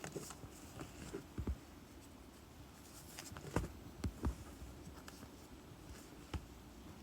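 Light handling noise: irregular soft taps, clicks and scratches, with a few sharper knocks about halfway through.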